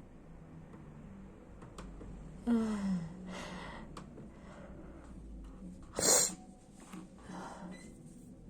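A person sneezing: a gasping in-breath with a falling 'ah' about two and a half seconds in, then one sharp sneeze about six seconds in, followed by a short breath.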